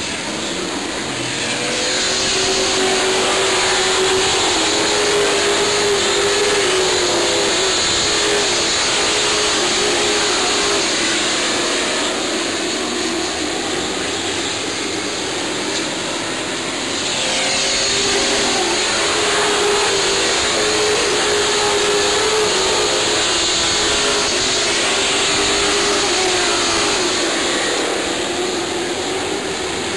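A pack of Sportsman stock cars racing around a short oval, their engines swelling loud as the field passes, twice about fifteen seconds apart, with the wavering note of several engines over a rush of noise.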